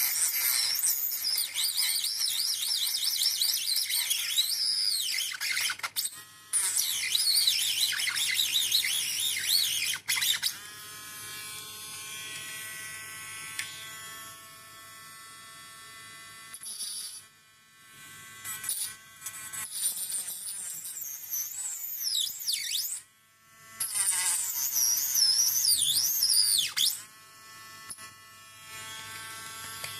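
Mini rotary grinder running with a steady whine, cutting into a plastic part in several stretches. While it cuts, a loud, shrill, wavering screech comes in, with its pitch sagging and recovering.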